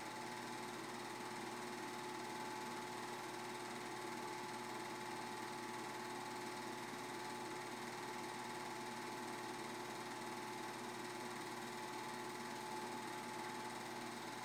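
Home-movie film projector running: a steady mechanical whirr with a constant hum.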